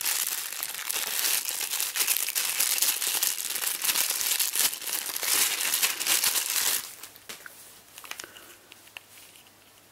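Foil blind-box packet crinkling and rustling as it is handled. The crinkling stops about seven seconds in, leaving only a few faint clicks.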